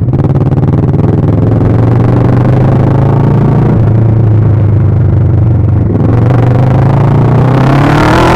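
Kawasaki ER-6n parallel-twin motorcycle engine running loud through an open, straight-pipe exhaust, holding a steady low engine note, then revving up with its pitch rising near the end.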